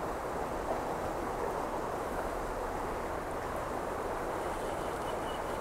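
Flowing river water rushing steadily, an even hiss with no breaks.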